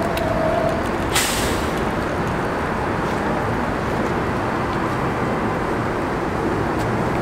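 NYC Subway R188 train standing in the station with its equipment humming steadily, and a short, sharp hiss of released air about a second in.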